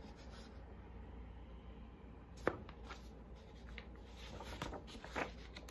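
Quiet room tone with a few soft handling noises from a hardcover picture book being moved: one sharp tap about halfway through and lighter rustles and taps near the end.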